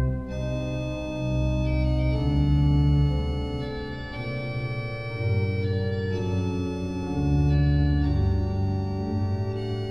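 Organ music: slow held chords over deep bass notes, changing every second or two.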